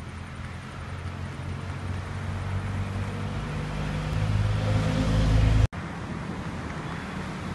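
A motor vehicle's engine running, its low hum growing steadily louder until it cuts off abruptly about three-quarters of the way through; after that, a steady, quieter outdoor background hiss.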